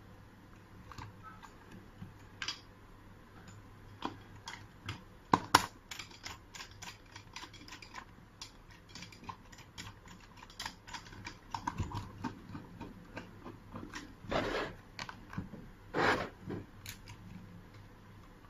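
Irregular small clicks and taps of metal lock parts and screws being handled and fitted during installation of a mechanical push-button door lock, with two longer scrapes near the end.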